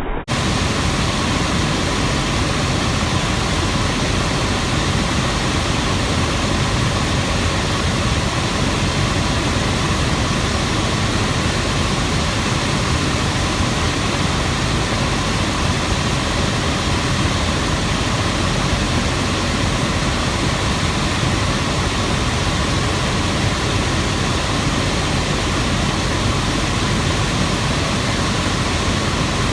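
Trane air handler's blower running: a steady, loud rush of air with a faint steady hum, its blower wheel wobbling out of balance.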